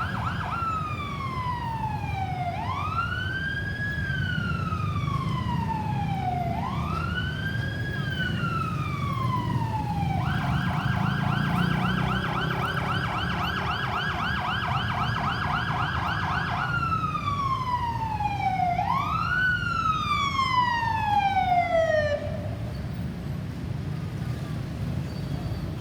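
Ambulance's electronic siren on a wail, each cycle rising quickly and falling slowly, switching to a rapid warble for about six seconds in the middle, then back to the wail before cutting off about 22 seconds in. A low engine and road rumble runs underneath.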